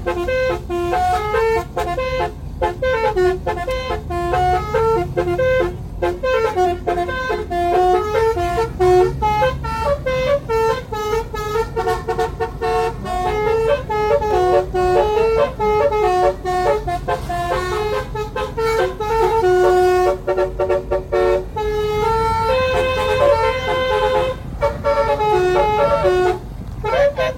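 Telolet horn, a multi-tone musical car horn, playing a long tune of stepping notes with short breaks between phrases, over a steady low rumble.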